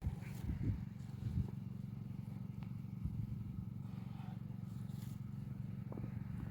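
An engine running steadily with a low, even hum, with a few faint knocks over it.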